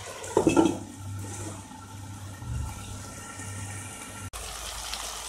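Potatoes, capsicum and tomato sizzling in oil in a wok as a glass lid is set on it, with a short clatter of the lid about half a second in, then a steady soft sizzle under the lid. The sizzle cuts off about four seconds in.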